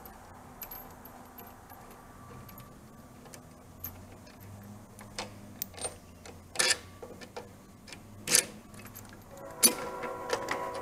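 Light metallic clicks and clinks as the lower rear shock bolt and nut on a Harley-Davidson Sportster are worked loose by hand, with a few sharper clanks in the second half. The last clank, near the end, is followed by a ringing tone.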